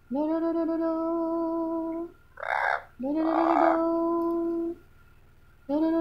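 Amazon parrot singing long, steady held notes, two of about two seconds each, with a short raspy squawk between them and a third note starting near the end.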